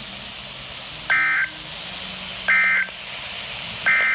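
NOAA Weather Radio's SAME end-of-message data bursts: three short, buzzy digital tone bursts about 1.4 seconds apart over steady radio hiss, signalling the end of the alert broadcast.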